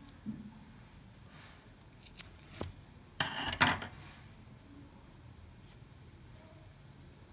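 Scissors snipping through cotton yarn, two quick cuts a little past three seconds in, with faint rubbing of the yarn being handled before them.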